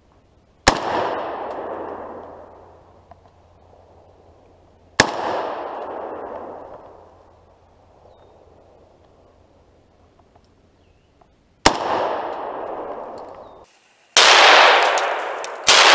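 Single shots from an AK-pattern 7.62x39 rifle, three of them several seconds apart, each a sharp crack that echoes and fades over about two seconds. Near the end, after a short break, a louder and longer noise follows, with another sharp bang in it.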